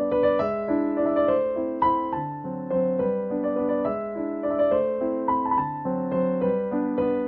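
Background piano music: a melody of single struck notes over held lower chords.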